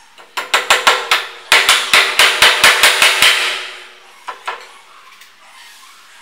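Claw hammer driving a nail into a stack of plywood strips: a run of about six blows, a brief pause, then a longer run of about a dozen quicker blows, and two lighter taps about four seconds in.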